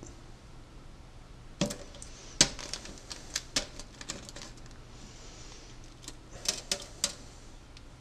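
Goose eggshell being cracked and picked apart by hand over a stainless steel sink: sharp cracks and clicks in a cluster from about two seconds in, then another around six to seven seconds.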